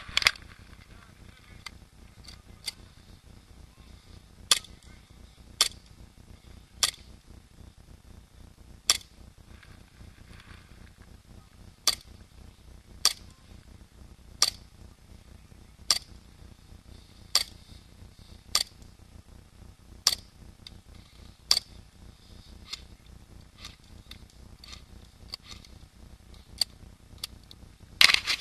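Airsoft guns firing single shots: short sharp pops about every second or so, with a quick cluster of louder crackling near the end.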